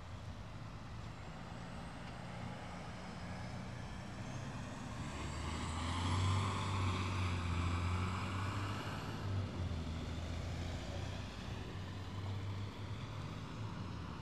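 A motor vehicle passing: a low engine hum that swells to its loudest about six to nine seconds in, then slowly fades.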